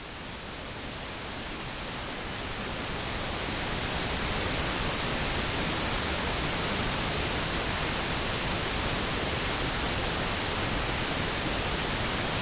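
Steady static-like hiss with no tones or rhythm, growing a little louder over the first few seconds, then holding even.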